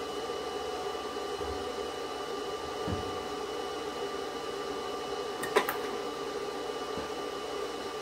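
Steady electrical hum with a faint high whine, and a quick cluster of sharp clicks a little past halfway through, as the truck's ignition is switched to the run position.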